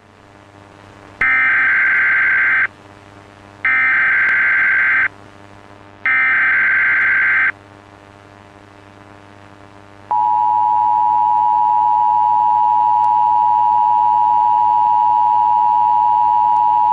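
Emergency Alert System alert tones, loud: three short bursts of digital SAME header data, each about a second and a half long with a second's gap between them, then about ten seconds in the steady two-tone EAS attention signal (853 and 960 Hz together) begins and holds.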